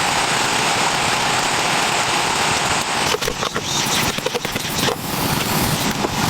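Steady rain falling, an even loud hiss. A run of knocks and clicks comes in about halfway through.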